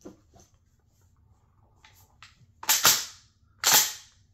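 Emperor Firearms MTP20 20-gauge pump-action shotgun being racked by hand to unload it: a few light clicks near the start, then the fore-end is yanked back with a loud double clack and slammed forward about a second later, cycling a shell out of the action.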